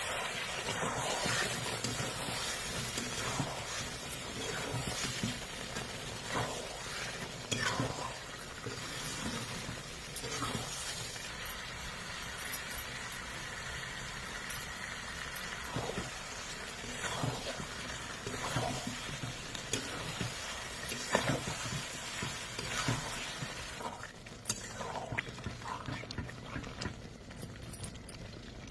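Food sizzling as it fries in a pan, with occasional knocks and scrapes of a stirring spoon against the pan. The sizzle quietens near the end.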